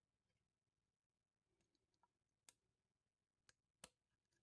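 Faint sharp clicks as a small flat-head screwdriver pries open the retaining clips on a BMW E46 upper radiator hose's plastic connector: one click about two and a half seconds in, then two close together near the end.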